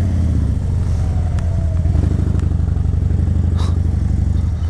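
Harley-Davidson V-twin motorcycle engine running steadily at low revs as the bike rolls slowly, a loud, even, pulsing rumble with a few faint ticks.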